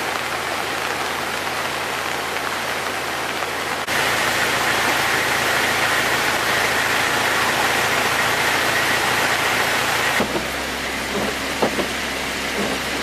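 Steady rushing of fast-flowing muddy flash-flood water, a hissing noise with no pitch to it. Its tone shifts abruptly twice, about four seconds in and again near ten seconds.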